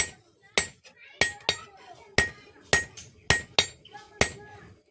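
Hand hammer striking steel on an anvil while forging a spatula: about nine sharp blows, roughly two a second, each with a short bright metallic ring.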